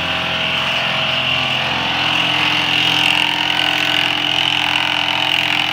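An engine or motor running steadily at an even speed.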